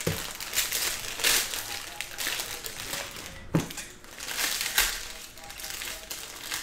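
Foil trading-card pack wrappers crinkling and tearing as the packs are handled and ripped open, in irregular bursts, with a soft knock near the start and another about three and a half seconds in.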